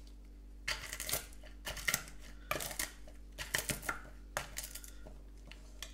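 Walnuts crushed with an obsidian pestle in a small hammered copper bowl: irregular crunches and scrapes with clinks of stone on metal, starting about a second in.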